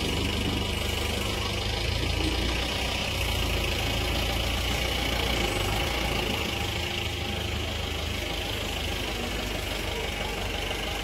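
An engine running steadily at idle, with a constant low hum.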